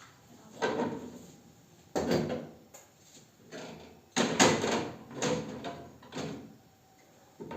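About six sharp knocks and clatters, spaced a second or so apart, as household things are handled and set down.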